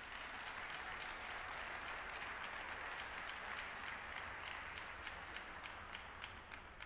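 Audience applauding, a steady patter of clapping that thins out and fades toward the end, with single claps standing out near the end.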